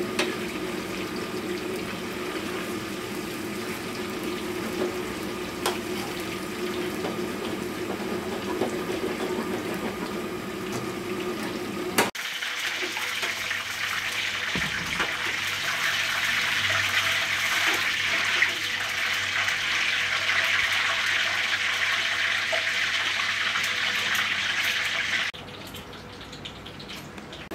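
Water running steadily. About twelve seconds in a click is followed by a brighter hissing stretch, which cuts off abruptly near the end.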